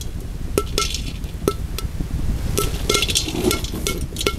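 Dried peas toasting in a pan, clicking and clinking against it as they are stirred, with a few short scraping rushes between the clicks.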